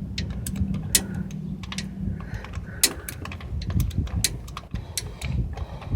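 Scattered sharp metallic clinks and knocks as a truck's starter motor is worked loose by hand from the transmission housing, over a steady low hum.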